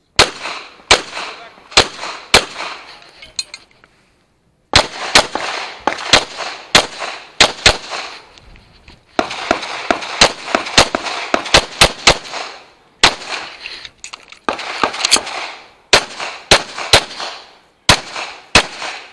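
Semi-automatic service pistol firing rapid pairs of shots, close and loud from the shooter's own position. The shots come in quick strings broken by short pauses, the longest about a second long about four seconds in.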